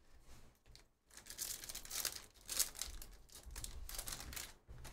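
Foil trading-card pack wrapper crinkling and tearing as it is opened by hand, in uneven rustling bursts starting about a second in.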